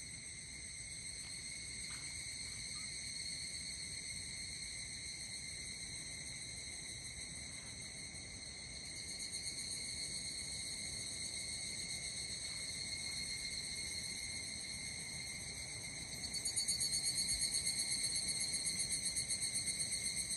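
Insects chirring in a steady, high-pitched chorus. It grows louder and takes on a fast pulsing near the end.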